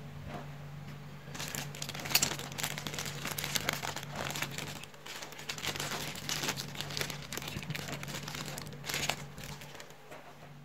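A clear plastic bag of small parts crinkling and rustling as it is handled, starting about a second in, with a steady low hum underneath.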